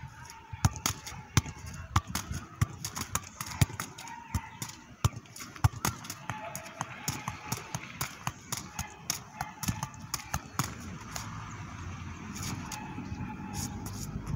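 Football being juggled: a run of quick thuds as the ball is struck by foot, thigh and head, about two to three a second, thinning out after about eleven seconds.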